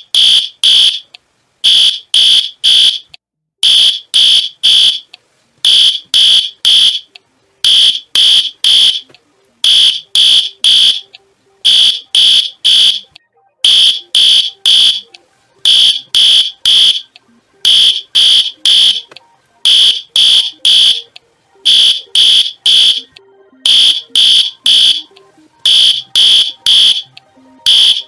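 High-pitched electronic alarm beeping in groups of three, one group about every two seconds, the three-beep pattern of a smoke or fire alarm.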